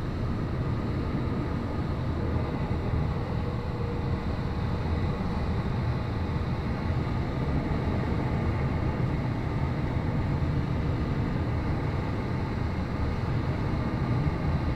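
Steady rush of air around a glider's cockpit in flight, a low, even rumble.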